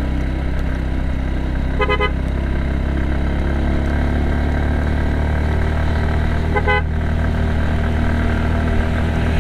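Motorcycle engine running steadily under load on an uphill road. A vehicle horn gives two short toots, about two seconds in and again about five seconds later.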